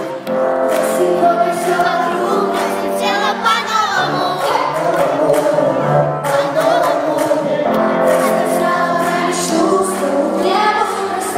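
Girl pop group singing a song together over a pop backing track, played through the hall's sound system.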